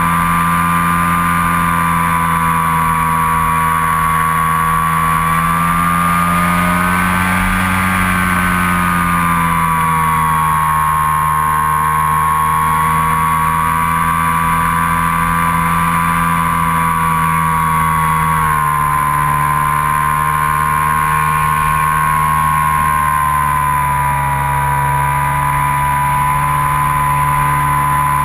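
Skywalker FPV model plane's electric motor and propeller whining steadily in flight, heard up close from the onboard camera. The pitch rises briefly about seven seconds in and drops a little about eighteen seconds in, following the throttle.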